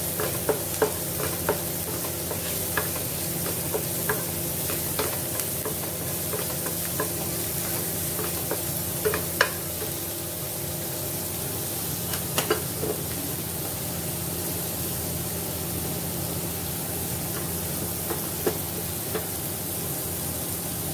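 Chopped onion sizzling as it fries in ghee in a non-stick frying pan, stirred now and then with a wooden spatula that scrapes and taps against the pan in irregular clicks.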